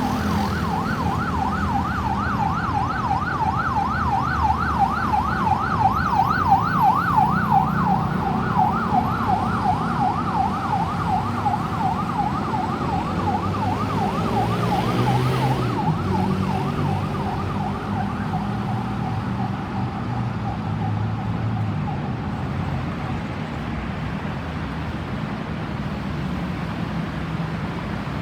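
Ambulance's electronic siren on a fast yelp, sweeping up and down about three or four times a second, fading away over the first half as it moves off. Steady traffic noise runs under it, with a louder passing vehicle about halfway through.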